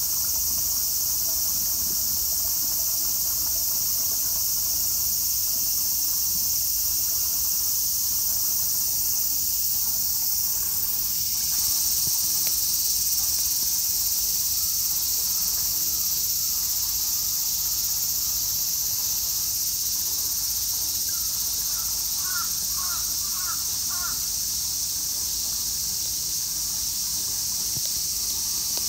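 Steady high-pitched drone of insects. About three-quarters of the way through comes a short run of about five quick chirping calls.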